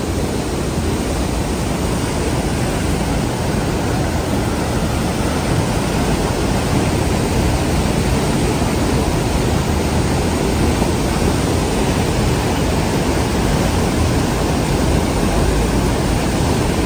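Waterfall pouring over a broad rock ledge into a rocky mountain river: a loud, steady rush of falling water that grows slightly louder.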